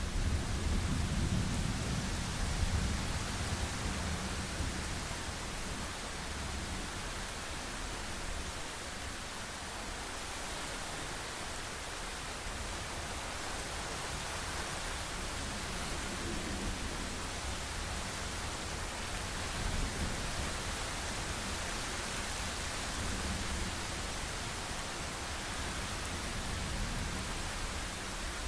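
Heavy rain falling steadily, with low rolling thunder that is strongest in the first few seconds and fades, and fainter rumbles returning later.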